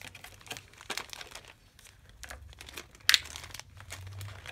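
Packaging around small plastic game figures being crinkled and torn open by hand: irregular crackles, with one sharp, louder crackle about three seconds in.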